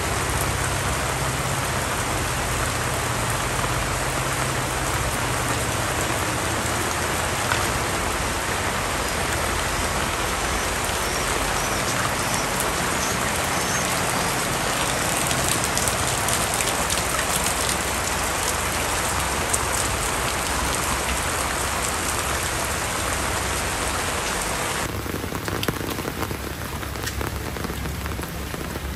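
Heavy rain falling, a dense steady patter of drops. About four seconds before the end the sound changes suddenly and thins out in the lower range.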